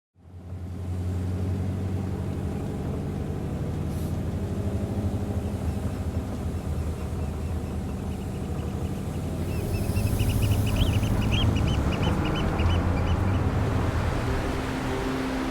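A steady low rumble, with a rapid run of high, evenly spaced bird-like chirps over it from about six to thirteen seconds in.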